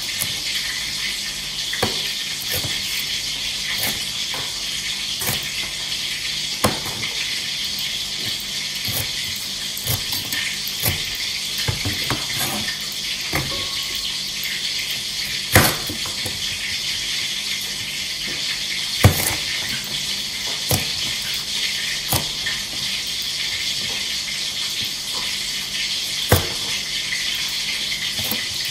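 Cleaver blade knocking on a plastic cutting board as bell peppers are cut into large pieces, in separate chops a second or several apart, over a steady hiss.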